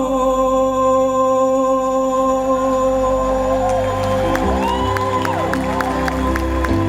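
Live pop band with a female singer playing the closing bars of a song: a long held note rings on, then a steady ticking percussion beat and bass notes come in about halfway, with a few short swooping melodic lines.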